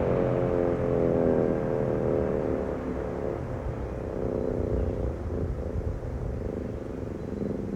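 American Signal T-121 outdoor warning siren winding down during a test: its wail slowly drops in pitch and fades. A steady low rumble runs underneath.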